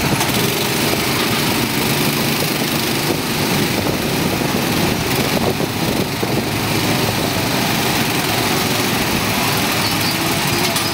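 Gasoline go-kart engines running, several at once, a loud steady drone.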